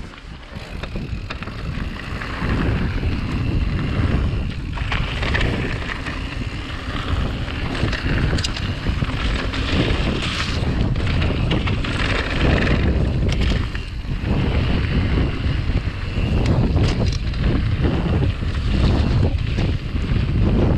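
Wind buffeting the microphone as a mountain bike rolls fast down a rough gravel trail, with tyre noise and the bike rattling over stones. It grows louder over the first couple of seconds as speed builds, then holds.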